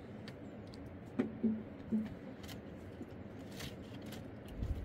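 Dry firewood sticks knocking and scraping as they are handled and stacked on a woodpile: scattered dull knocks and clicks, the loudest cluster about a second in. A low rumble starts near the end.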